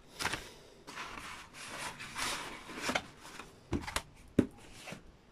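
Rustling of plastic wrap and cardboard reel-to-reel tape boxes being handled and shuffled in a parcel, with a few sharp light knocks of the boxes near the end.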